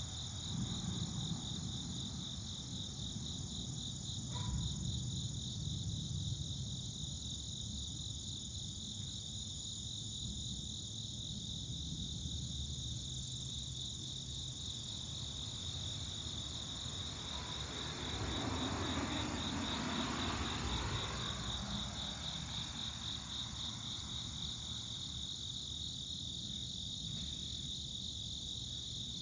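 Distant thunder rumbling low, swelling near the start and again for a few seconds past the middle, under a steady, high, pulsing insect chorus.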